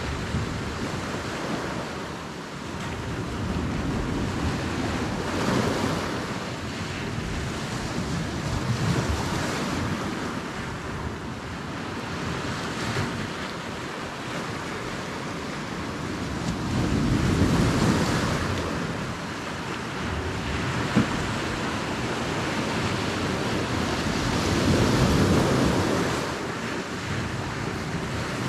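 Wind buffeting the microphone over the wash of sea waves, a steady rushing noise that swells louder every several seconds. A single short click about three quarters of the way through.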